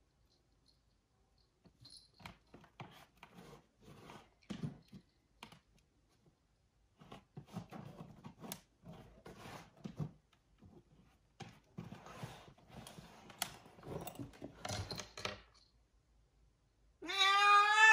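Soft, scattered rustling and scratching noises, then near the end a Bengal cat gives one loud, long, wavering meow, as it wants to go outside.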